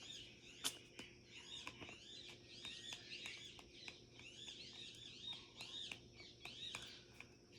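Faint birdsong: many short, quick chirping notes repeating throughout, with a few soft clicks, the sharpest under a second in.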